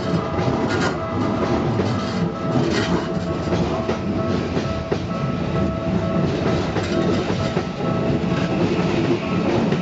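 Toei 5500-series electric train running past at a level crossing: steady rolling noise from wheels and rails with short clatters over rail joints.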